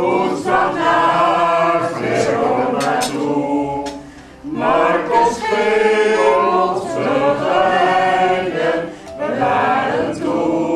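A man and a woman singing a song together, unaccompanied, in long held phrases. The singing breaks off briefly about four seconds in and again just before the end.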